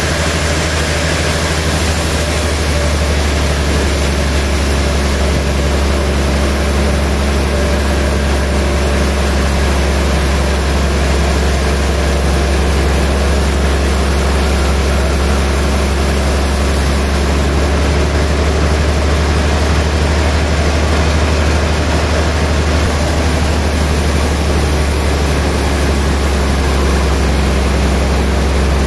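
Large log band saw running steadily, its motor and wheels giving a constant deep hum.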